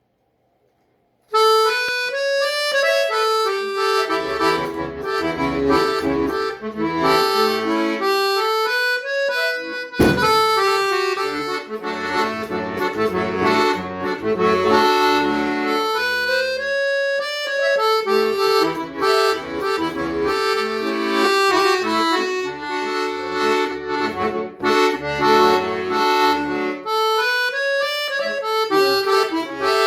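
Solo instrumental music: a quick melody with rising and falling runs over pulsing bass notes and chords, starting about a second in, with a sudden fresh attack about ten seconds in.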